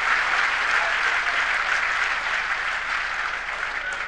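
Arena crowd applauding after a point in a badminton match, the clapping dying down toward the end.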